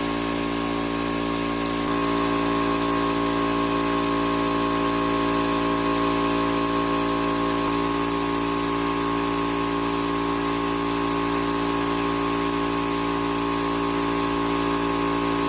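Oil-lubricated air compressor running steadily under continuous duty, a constant pitched drone over an even hiss. It is running strong on freshly changed oil treated with Energy Release additive.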